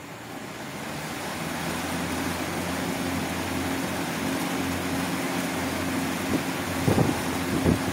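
Desert air cooler's 18-inch exhaust fan coming up to speed over the first couple of seconds, then running steadily: a rush of air over a low motor hum. A few low thumps near the end.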